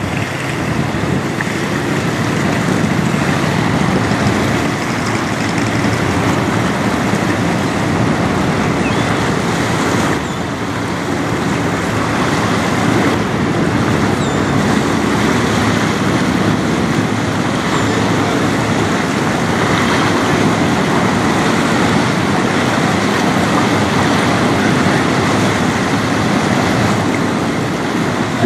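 Bulk carrier passing close by: a steady low drone from the ship under the rush of its bow wave and wash along the hull, with wind on the microphone.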